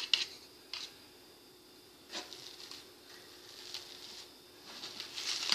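A knife scraping soft butter off a spoon, with a few light clicks of metal in the first second. Plastic cling wrap then rustles and crinkles as it is lifted and folded over the butter, getting louder near the end.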